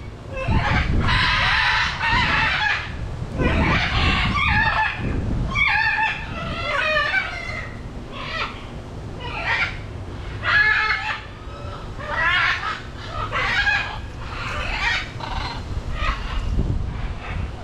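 Macaws squawking: a string of harsh, raspy calls about one a second, some long and overlapping, with a low rumble under the first few seconds.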